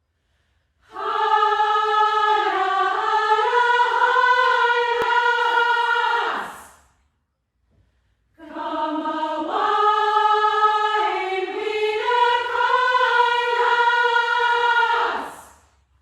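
Upper-voice choir singing sustained chords in two long phrases of about five and seven seconds, with a short silence between. Each phrase ends with the voices sliding down in pitch as they fade.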